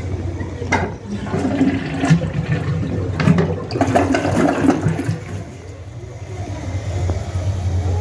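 Toilet flushing: water rushing and gurgling through the bowl from about a second in, easing off after about five seconds. A steady low hum runs underneath.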